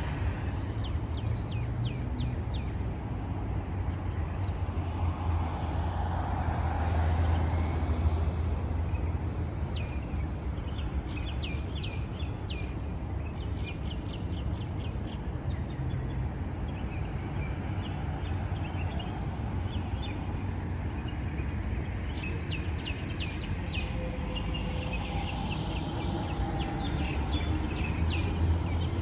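Small birds chirping in quick runs of short, high notes, twice in the stretch, over a steady low rumble of street traffic.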